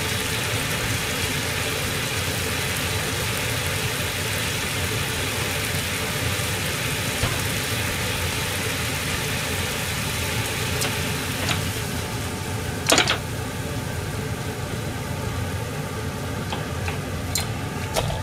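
Steady stovetop cooking noise: a pan of meat sauce simmering and a pan of spaghetti boiling, with a single sharp clack about 13 seconds in and a few light clicks near the end.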